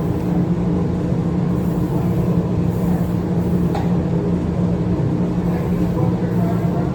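A steady machine drone, a motor running at constant speed with a low hum, unchanged throughout, with one faint click about four seconds in.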